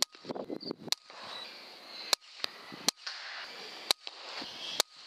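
A rifle firing rapidly, about six sharp shots roughly a second apart, with a rustling noise between the shots.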